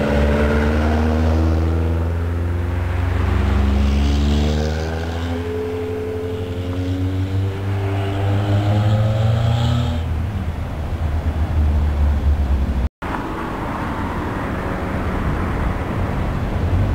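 Small sports cars driving past, led by a Seven-style open roadster. The engine note, with a low rumble under it, rises and falls in pitch and then rises again. It breaks off for an instant about thirteen seconds in and carries on as a steadier engine drone.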